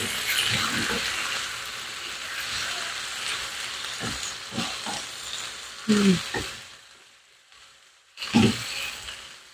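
Squid pieces sizzling in hot oil in a nonstick pan as they are stirred with a wooden spatula, with a few knocks and scrapes of the spatula on the pan. The sizzling fades away near the end, and one last knock follows.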